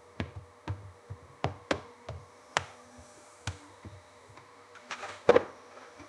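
A series of about a dozen irregular knocks and taps, the loudest a pair about five seconds in, over a faint steady hum.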